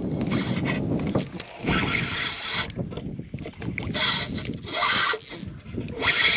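Canoe on the water, with wind on the microphone: a low rumble, then repeated surges of hiss about a second long.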